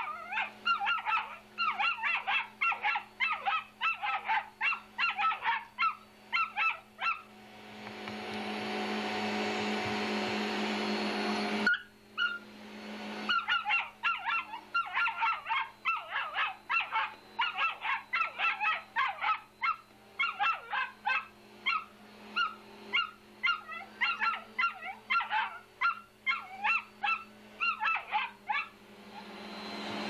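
Dog barking at a vacuum cleaner in rapid, honking barks, about four a second, in two long runs. Between the runs is a few seconds of steady rushing noise. A low steady hum sits under everything.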